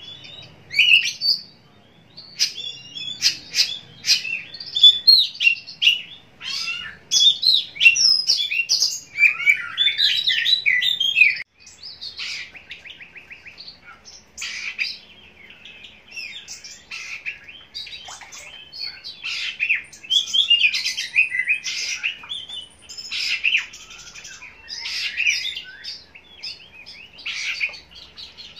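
Oriental magpie-robin (kacer) singing a fast, varied run of whistles, trills and sharp chirps, with a brief break about a third of the way through.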